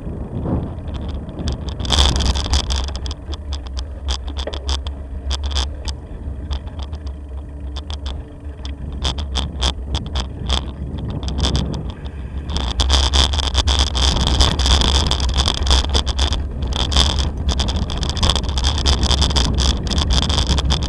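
Bicycle rattling in quick clicks as it rolls over stone paving and cobblestones, over a steady rumble of wind on the microphone. The rattling grows louder and denser a little past halfway.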